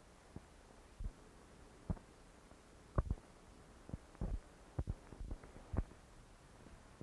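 About a dozen irregular dull thumps and knocks, coming closer together after about three seconds: heavy blocks being set down on a station wagon's wooden tailgate.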